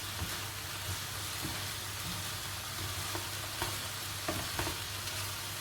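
Shredded salt cod, onion and straw potatoes sizzling in oil in a frying pan while being stirred, with a few light clicks of the utensil against the pan.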